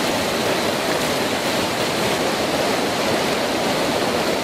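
Mountain-river rapids rushing over rocks: a steady, even roar of whitewater.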